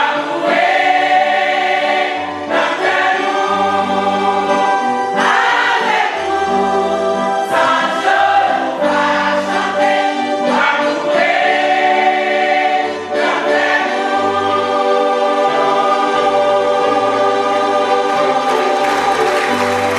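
Large church choir singing a gospel song together, with separate low bass notes underneath the voices.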